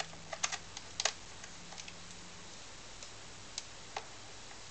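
A few light, scattered clicks and taps from handling the laptop's plastic case and parts during disassembly, a small cluster about a second in and two more near the end, over a faint low hum.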